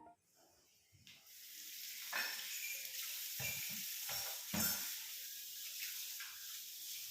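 Food sizzling in a hot pan, a steady hiss that sets in about a second in, with a few knocks of a utensil against the pan.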